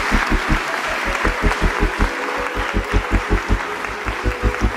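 Background music with a fast, steady bass beat, overlaid with a crowd's applause.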